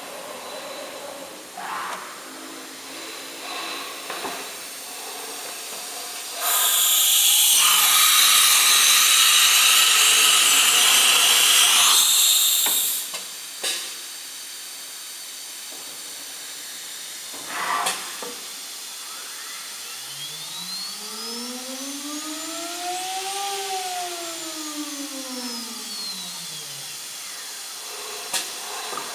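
Automatic tool-change spindle of a JCUT 1330 CNC wood router. It gives a loud hiss of compressed air for about six seconds, then a couple of short puffs and clicks. Later the spindle motor whines up in pitch and back down over about seven seconds.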